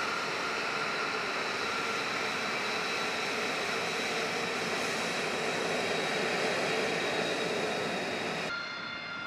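F-35B Lightning II's F135 turbofan engine whining steadily as the jet taxis past, a loud hiss of jet noise with several high steady tones. About a second before the end the sound cuts abruptly to a quieter, thinner jet whine.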